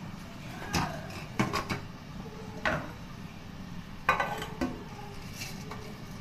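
Stainless-steel couscoussier steamer basket clanking as it is handled and tipped over the dish: several separate metallic knocks, the loudest about four seconds in, ringing briefly.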